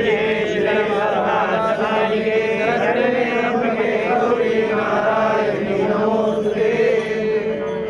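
Hindu puja mantras chanted in Sanskrit in a steady, continuous recitation, accompanying the worship offering.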